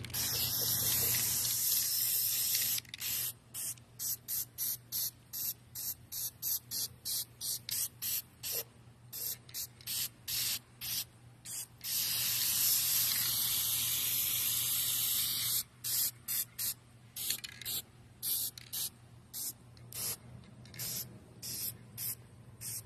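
Aerosol can of black spray paint hissing. It opens with one long spray of nearly three seconds, then many short quick bursts about two a second, another long spray of about three and a half seconds in the middle, then more short bursts.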